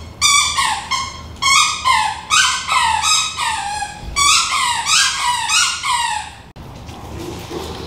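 Squeaky dog toy squeaked over and over as a dog bites and chews it, about two to three short squeaks a second, each dropping a little in pitch. The squeaking stops abruptly about six and a half seconds in.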